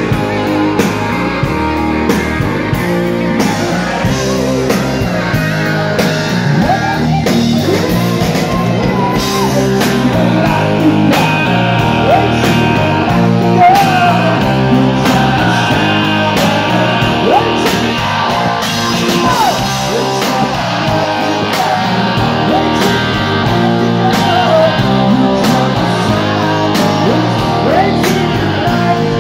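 Rock music: electric guitar with bending notes over a steady drum beat.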